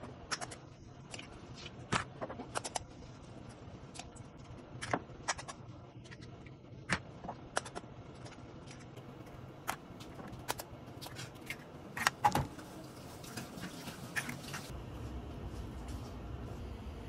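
Eggs being cracked one after another on the rim of a glass baking dish, with the shells clattering onto a pile: sharp clicks and taps at irregular intervals. A steady low hum comes in near the end.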